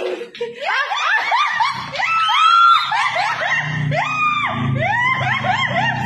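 High-pitched laughing: a quick run of rising-and-falling cries, with a low hum joining about halfway through.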